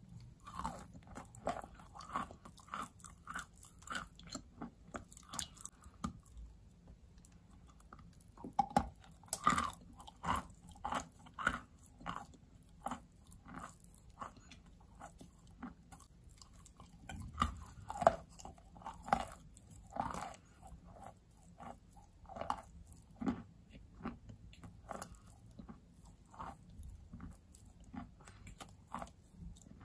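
Close-miked ASMR biting and chewing of soaked natural white chalk: a long run of short wet crunches and mouth clicks, coming in denser clusters about a third of the way in and again just past the middle.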